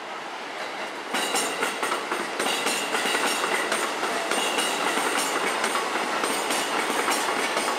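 E233- and E231-series electric commuter train running past, its wheels clacking over the rail joints, with a high whine over the wheel noise. It gets louder about a second in.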